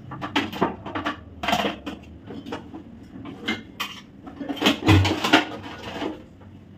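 Aluminium baking tray and kitchenware being handled on a counter: an irregular run of clinks and knocks, loudest about five seconds in.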